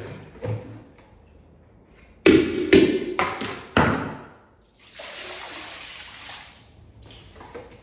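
Water poured from a plastic bucket over a person's head and splashing into the pool of liquid, an even rush lasting under two seconds, starting about five seconds in. Just before it, a few loud, short vocal cries.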